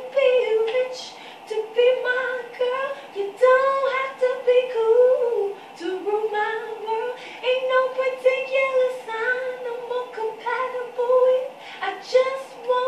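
A woman singing unaccompanied in a high voice, in short phrases that slide slightly up and down in pitch.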